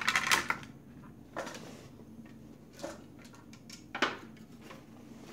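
Plastic gel pens clattering against each other and a clear acrylic box as they are handled, a short rattle at the start followed by three fainter knocks spread over the next few seconds.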